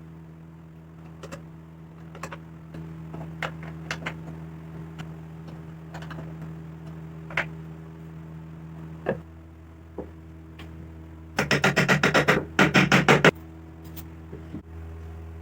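Scattered taps and knocks of wood and tools being handled over a steady low hum, then two short runs of rapid, loud strokes about two-thirds of the way through.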